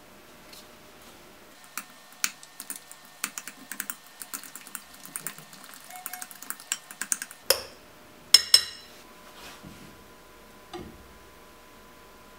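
A fork stirring beaten eggs with grated cheese and ham in a glass bowl, clicking irregularly against the glass, then two louder ringing clinks on the glass bowl a little past halfway.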